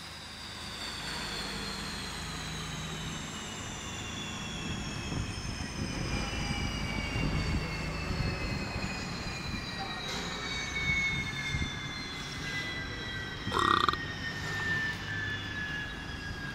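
Turboprop airliner's engines winding down: several high whining tones fall slowly and steadily in pitch over a low hum. A brief louder sound comes near the end.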